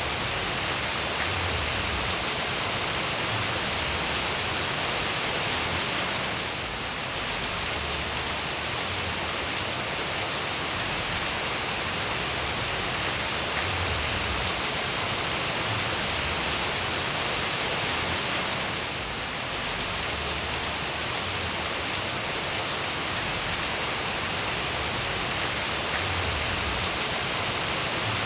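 Steady rain falling as an even, dense hiss, dipping slightly in level twice.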